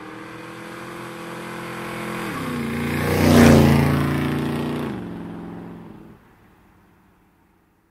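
A motor vehicle's engine passing by: it grows louder to a peak about three and a half seconds in, its pitch drops twice, and then it fades away.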